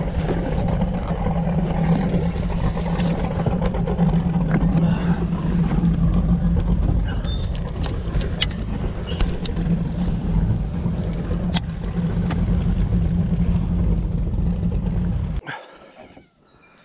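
A boat motor humming steadily, with a few light clicks over it; the hum cuts off suddenly near the end.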